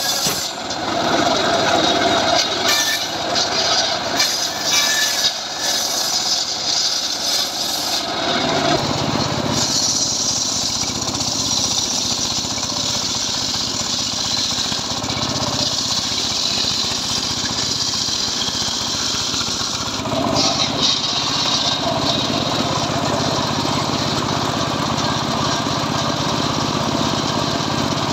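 Homemade engine-driven circular saw running continuously while cutting jowar wood into lengths, its sound shifting about eight seconds in and again near twenty seconds as the load on the blade changes.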